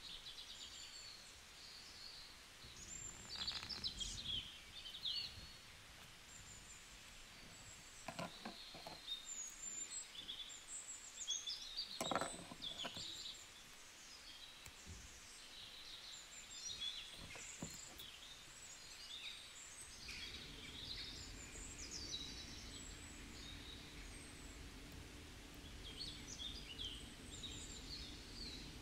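Faint chirping of small birds in the background, with a few soft taps and rustles from handling paper near the middle. A low steady hum comes in about two-thirds of the way through.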